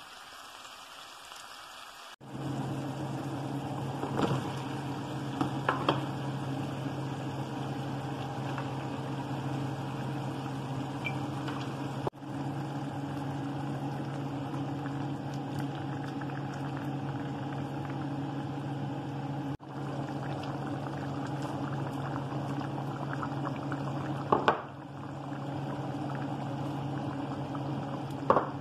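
Chicken stew simmering in a pot on the stove, a steady bubbling over a constant low hum, with a few sharp clinks against the pot.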